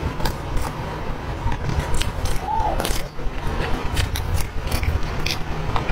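Close-miked mouth sounds of eating soft cream cake: a string of sharp, irregular clicks and smacks from chewing, over a steady low rumble.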